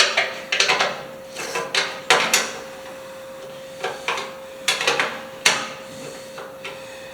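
A wrench working the hood bolts on a 1954 Farmall Cub: short bursts of metallic clicking and rattling, repeated about seven times with pauses between.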